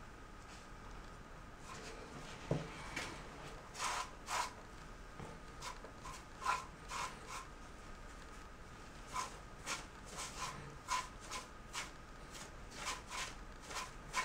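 Damp grout sponge wiped over freshly grouted mosaic shower-floor tile: an irregular series of brief rubbing strokes, starting about two seconds in.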